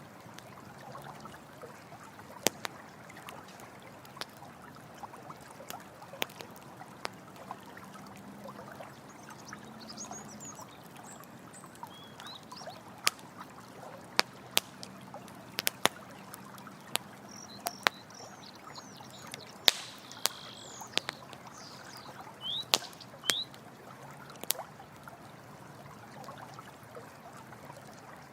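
Campfire crackling with sharp, irregular pops over the steady rush of running water. A few short high chirps come in around the middle.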